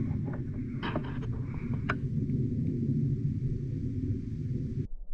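Wind buffeting the microphone: a steady low rumble, with a few faint sharp clicks in the first two seconds. It cuts off suddenly just before the end.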